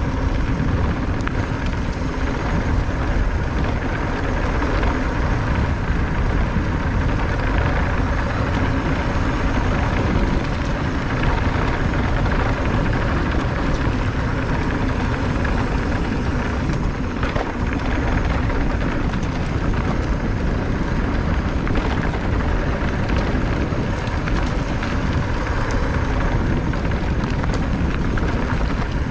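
Electric mountain bike riding along a dirt fire road: steady wind buffeting on the microphone and knobby tyres rumbling over packed dirt and gravel, with a faint steady whine running underneath.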